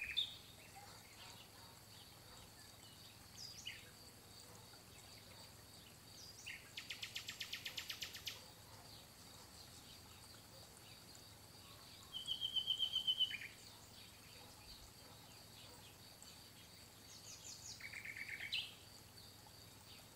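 A songbird singing three fast trilled phrases, each one to two seconds long and several seconds apart, with a short call before them. A steady faint high tone runs underneath.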